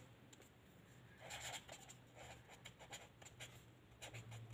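Pen writing on paper: faint scratchy strokes in short groups, starting about a second in.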